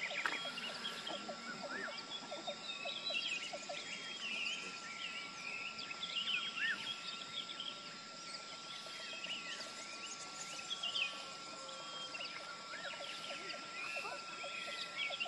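Many birds chirping and whistling at once: a dense chorus of short calls and quick pitch glides. A steady thin tone runs underneath.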